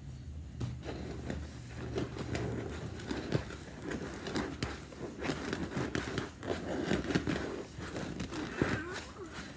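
A person imitating a cat with low, wavering throaty vocal sounds, mixed with crackling and rustling close to the microphone.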